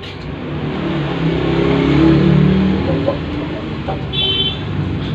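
A motor vehicle passing by, its engine noise swelling to a peak about two seconds in and then fading. A brief high-pitched chirp sounds about four seconds in.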